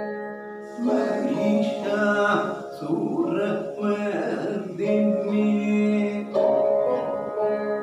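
Saraswati veena plucked and fretted, its notes sustained and gliding, with a man's voice singing along in a Carnatic kriti in raga Namanarayani, the 50th melakarta.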